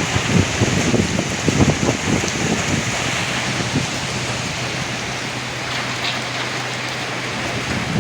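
Heavy rain pouring steadily amid strong wind. The low gusts are strongest in the first half and ease off about halfway through, leaving a steadier rain hiss.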